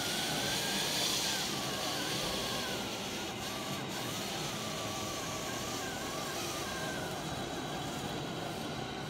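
Radio-controlled model semi-truck driving slowly, with a thin whine that wavers up and down in pitch over steady background noise.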